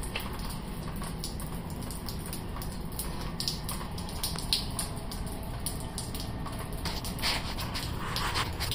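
Water from a leaking ceiling pipe dripping onto a puddle on a concrete floor, the drops landing in short, irregular splats a few times a second.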